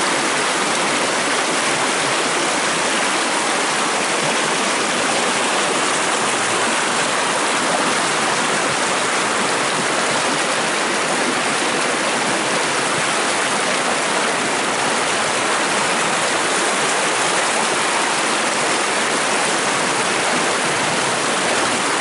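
A creek rushing over rocks in small cascades of white water: a steady, even rush.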